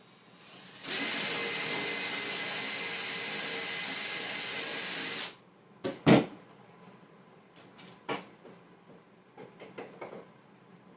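An electric power tool runs steadily at one speed for about four seconds, then stops. Several sharp knocks follow, like tools or hardware being set down on the bench.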